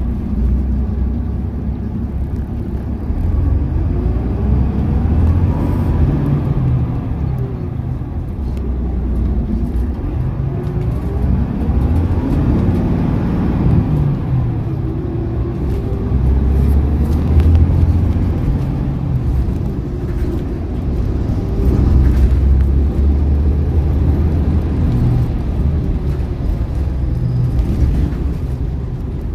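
Volvo B11RT coach's 11-litre six-cylinder diesel engine heard from inside the coach while it drives, over a steady low rumble. The engine note rises and drops several times as the I-shift gearbox changes gear.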